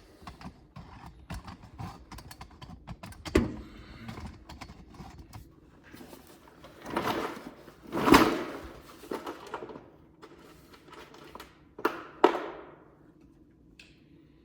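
Scattered light clicks and rattles of tools and parts being handled, with louder thunks about three seconds in, around seven to eight seconds in, and twice near twelve seconds.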